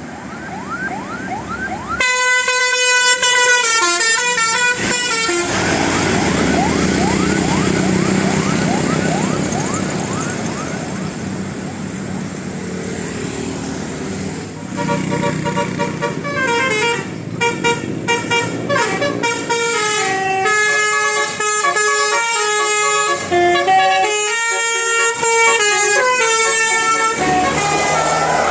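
A bus's multi-tone basuri horn playing a stepped melody: a short run of notes about two seconds in, then a longer tune from about halfway until near the end. Between the two, the bus engine runs with repeated rising whines.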